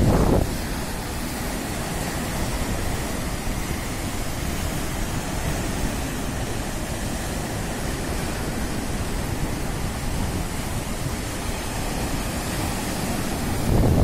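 Mediterranean sea waves breaking and washing over shoreline rocks: a steady rush of surf.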